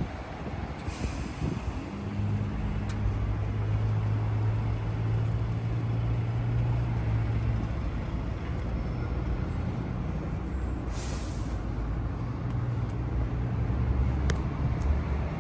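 An engine running steadily at an unchanging pitch, with no revving. Two short hisses come through, about a second in and again about eleven seconds in.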